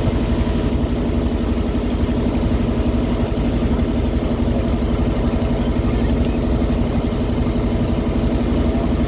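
River boat's engine running steadily at an even pitch, with a constant low rumble.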